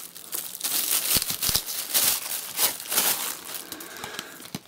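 Thin clear plastic bag crinkling and rustling as it is untied and pulled off a plastic sports bottle, with a few soft knocks about a second and a half in and again near the end.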